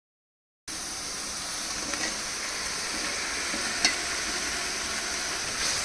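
Biryani masala sizzling as it fries in oil in a large aluminium pot, with chopped tomatoes being stirred in with a slotted steel spoon. The steady sizzle cuts in abruptly under a second in, and a couple of faint clinks of the spoon against the pot can be heard.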